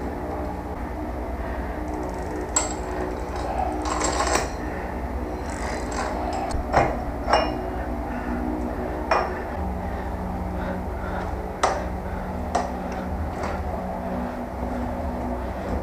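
Small metal parts of a BMX's rear hub clinking and knocking as the axle nut and washer are taken off and the rear wheel is pulled from the frame: scattered sharp clicks and clinks over a steady low hum.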